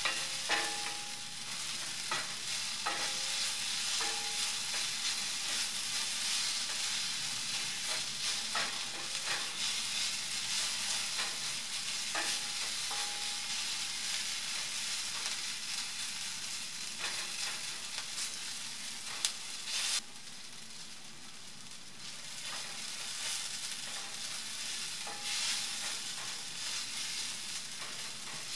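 Sliced red onions sizzling in hot coconut oil in a pan, stirred with a wooden spatula that scrapes and taps against the pan now and then. The sizzle dips briefly about two-thirds of the way through, then picks up again.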